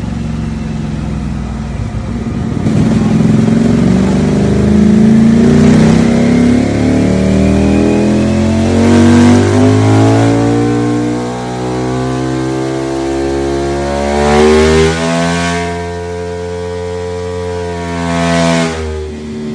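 Loud motorcycle engine revving: from a low idle its pitch climbs steadily for about six seconds, drops back, then is blipped up and down twice near the end before settling to idle.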